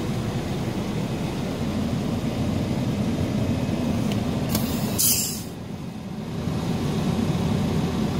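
Scania R370 truck's diesel engine idling steadily, heard from inside the cab. About five seconds in, a loud hiss of compressed air vents from the air brake system for roughly a second.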